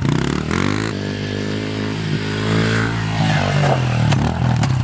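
Small 110cc engine revving up under throttle in second gear, its pitch rising over the first second and then holding high and steady, before the note breaks up about three seconds in.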